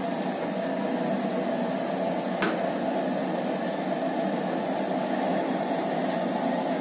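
A large batch of arrowroot-coated potato fries deep-frying in hot oil in a big karahi: a steady, even sizzle and bubbling on their first, half-frying pass. A single light click about two and a half seconds in.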